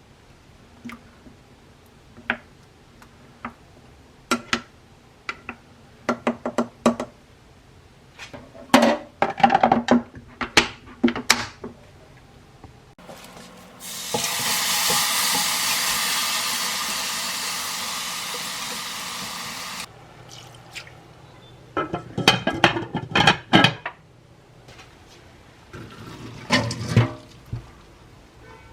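Kitchen clatter of dishes and utensils being set down and knocked together, then a kitchen tap running steadily for about six seconds before it is shut off abruptly, followed by more clattering of dishes.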